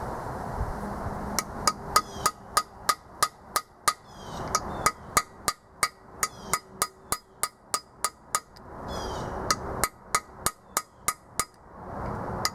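Hammer striking a bolt used as a driver to tap a small expansion plug into a small block Chevy 350's engine block. The sharp metallic strikes come about three a second in runs, with short pauses between the runs.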